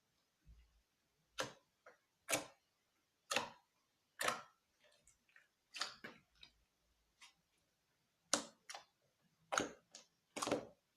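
Clear-glue slime being squeezed and worked by hand, giving a series of short, sharp clicks and pops, about one a second.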